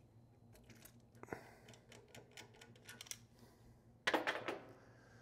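Light clicks and rattles of brass fittings and hose being handled as a test gauge is disconnected from a pressure vacuum breaker's test cock, with a short louder clatter about four seconds in.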